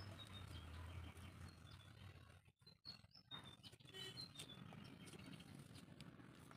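Faint background with short, high bird chirps scattered throughout, over the soft scrape of a thin metal blade smoothing wet clay.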